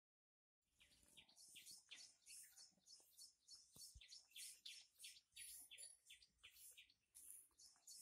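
Faint, quick chirping of small birds, about three short high chirps a second, starting after a brief silence.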